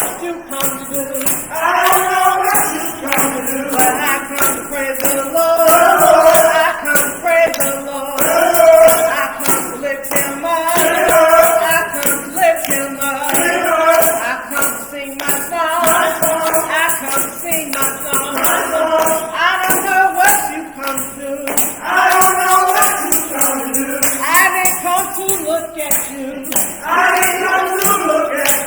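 Gospel song in church: voices singing over a tambourine shaken steadily on the beat.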